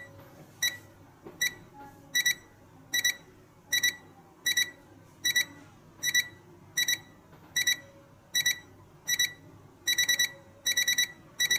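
LED projection alarm clock's electronic alarm beeping: short high beeps a little faster than once a second. They start single, turn into pairs about two seconds in, and become quick runs of four near the end, as the alarm steps up.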